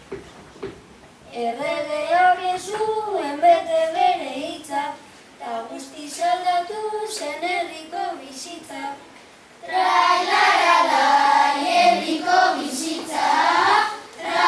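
Children singing Basque bertso verses unaccompanied, in phrases with short pauses between them. About ten seconds in, the singing becomes louder and fuller.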